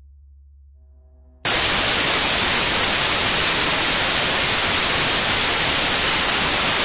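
Faint ambient drone music, then about a second and a half in a loud, even hiss of television static cuts in abruptly.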